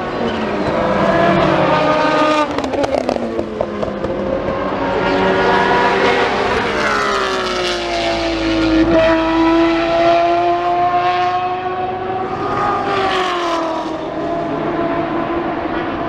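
FIA WEC endurance race cars running through a corner at racing speed, one after another. The engine note falls and climbs several times as cars pass, brake and accelerate away.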